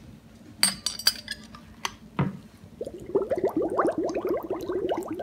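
A few sharp glass clinks, then from about three seconds in a rapid run of rising gurgles as air bubbles out of a glass beer bottle being pushed down under the cleaning solution and filling.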